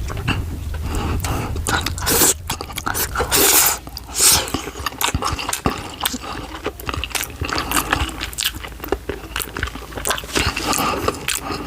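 Close-miked eating: biting into and chewing a soy-sauce-dipped fried dumpling, with many quick wet smacks and clicks of the mouth.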